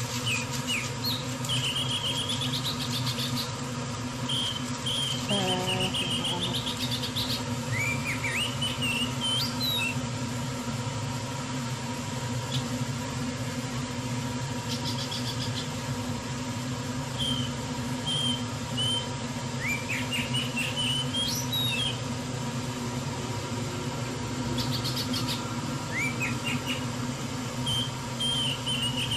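Small birds chirping and trilling again and again, short rising and curling calls, over a steady low hum.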